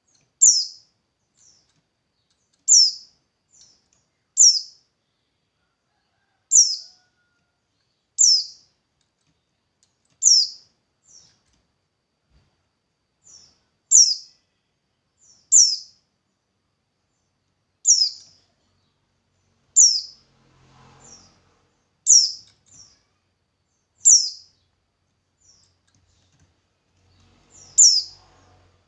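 A songbird repeating a short, high chirp that falls in pitch, about once every two seconds. Most chirps are followed by a fainter short note, and there is one longer pause about a third of the way through.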